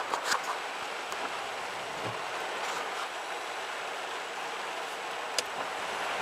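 Torrential rain falling on a car's roof and windscreen, heard from inside the car as a steady hiss. A few light clicks at the start and one sharp click about five seconds in.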